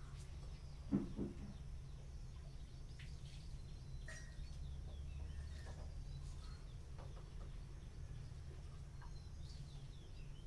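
Faint background with a steady low hum and scattered distant bird chirps. A short, louder low call sounds about a second in.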